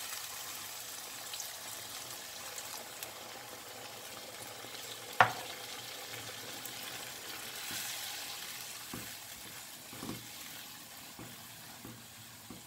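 Wine and tomato sofrito sizzling in a hot nonstick wok as the wine cooks off, a steady hiss. A single sharp knock about five seconds in, and a few soft silicone-spatula strokes against the pan near the end.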